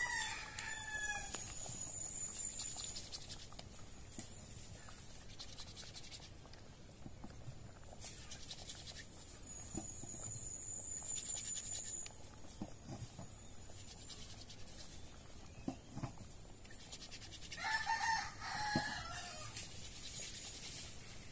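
Rooster crowing twice, once right at the start and again about 18 seconds in, each crow about a second long and falling at the end.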